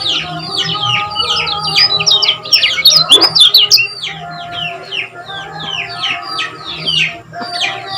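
Kecial kuning (yellow white-eye) singing a fast, unbroken run of short, sharp falling chirps, several a second, loudest around three seconds in, the rapid 'ngejos' chatter used as a training song to set other kecial kuning singing. A steady low hum sits underneath.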